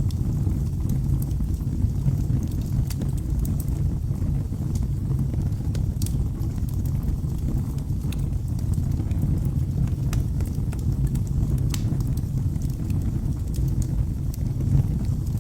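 Wood fire burning in a fireplace: a steady low rumble of flames with scattered sharp crackles from the burning wood.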